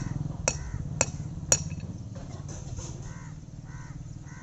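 Hammer tapping on an iron bull shoe being nailed to a cloven hoof: four sharp metallic strikes about half a second apart, stopping after about a second and a half. Crows caw several times near the end.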